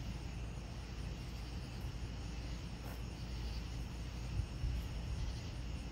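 Night-time outdoor ambience: a steady low rumble with faint, evenly repeating high insect chirps.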